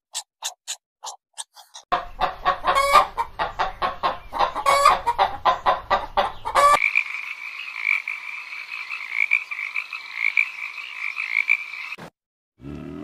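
Animal calls in three abruptly edited segments: short, separate calls, then a dense run of rapid pulsed calls, then a steady high trilling chorus that cuts off suddenly near the end.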